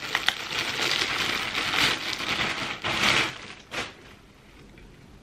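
Clear plastic polybag crinkling and rustling as a clothing top is pulled out of it, with a few sharp crackles; it dies down after about three seconds, with one last short crackle.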